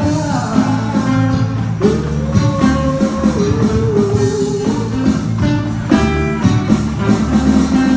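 Live band playing a rock song: acoustic guitar and an electronic drum kit struck with sticks, with one long held note about two seconds in.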